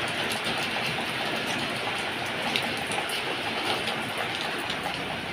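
Steady, fairly heavy rain falling, with many small drop ticks on nearby surfaces.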